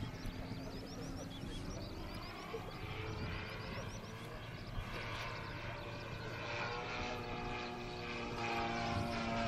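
Radio-controlled aerobatic model airplane flying, its motor and propeller note falling and then rising in pitch as it maneuvers.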